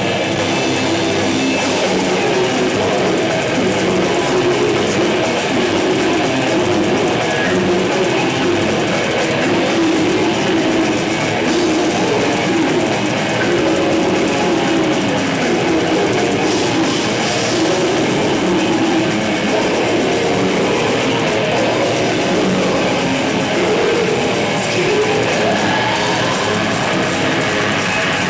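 Brutal death metal band playing live: distorted electric guitar over bass and drums, a dense, steady wall of sound.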